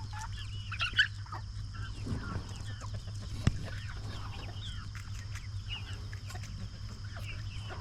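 A flock of domestic chickens clucking and chirping busily as they feed on tossed fruit scraps, with two sharp knocks along the way over a steady low hum.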